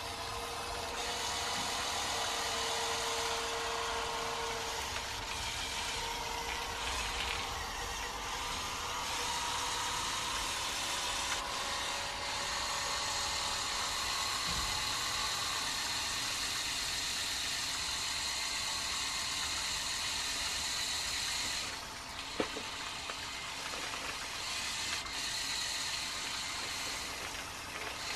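Small electric motors and plastic gear trains of a motorised LEGO Technic 8043 excavator whirring steadily as it slews and drives its boom and arm actuators. The whine changes pitch and loudness several times as different functions start and stop, and there is a single click a little after the twentieth second.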